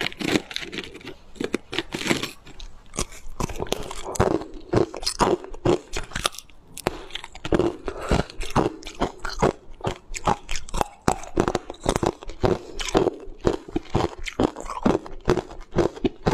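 Teeth biting and crunching hard frozen coloured ice, crunch after crunch, several times a second.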